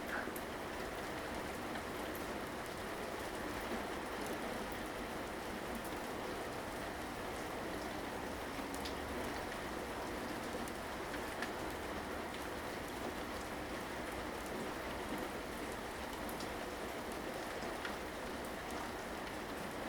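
Steady rainfall: an even hiss of rain on surfaces with scattered individual drops ticking.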